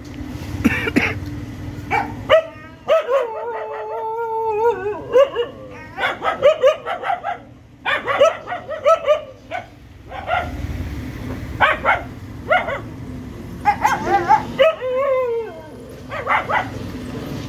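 Hungry puppies whimpering and yelping in many short, high-pitched cries, with a long drawn-out whine about three seconds in and another shorter one near the end.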